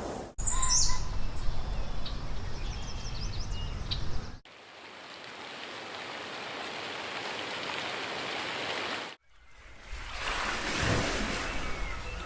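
Outdoor nature ambience in three abruptly cut stretches: birds chirping over a low rumble, then a steady rushing hiss, then a broad rush that swells and fades.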